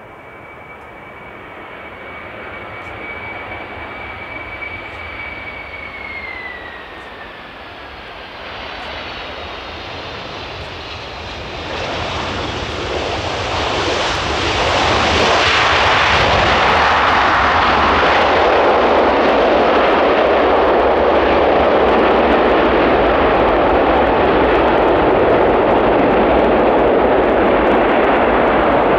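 McDonnell Douglas MD-11 freighter landing. Its jet engines whine on approach, the whine dropping in pitch about six seconds in. After touchdown a loud steady roar of reverse thrust builds and holds as the aircraft rolls out and slows.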